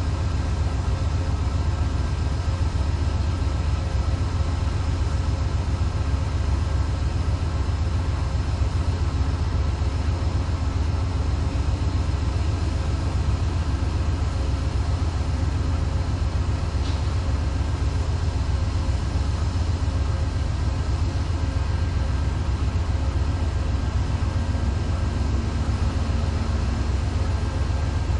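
Amtrak GE Genesis diesel locomotive idling while stopped: a steady low engine drone with a few constant hum tones above it.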